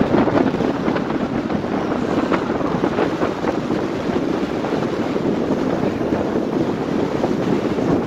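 Wind buffeting the microphone over the steady rush of Atlantic surf breaking and washing against granite shore rocks.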